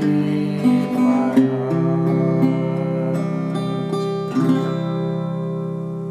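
Small-bodied acoustic guitar strummed, closing the song on a final chord, struck a little after halfway, that rings on and slowly fades.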